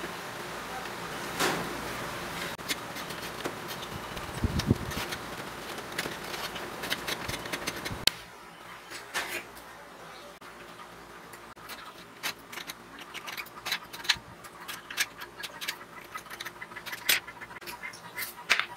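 Light taps, clicks and scrapes of small wooden pieces being handled and set down on a workbench, with a few dull knocks about four and a half seconds in. A steady background noise under them cuts off suddenly about eight seconds in.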